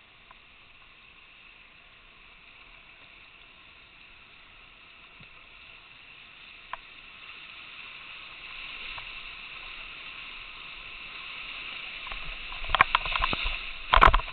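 Whitewater rapids rushing by a kayak, a steady hiss that grows gradually louder, then a burst of loud splashes close by near the end.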